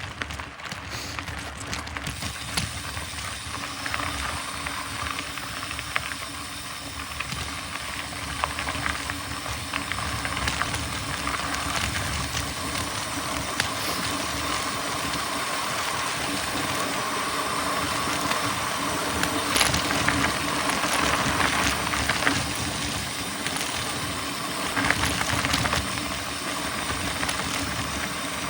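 Mountain bike being ridden on a trail: steady rushing noise of wind and tyres rolling over the ground, with scattered small knocks and rattles from the bike.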